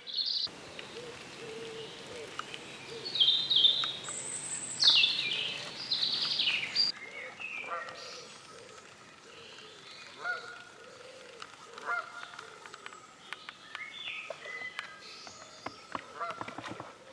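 Geese honking, a loud string of calls a few seconds in, then fainter scattered honks.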